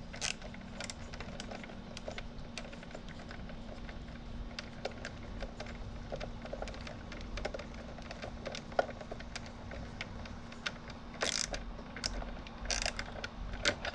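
Small irregular clicks and taps of a control knob being handled and worked onto the speed potentiometer shaft of a Delta 46-460 lathe, with a few louder clicks near the end.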